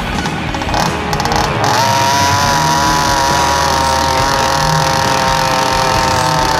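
Small two-stroke gas engine of a 25cc ROVAN Baja RC buggy revving up and down briefly, then held at a high, steady pitch from about two seconds in, driving flat out.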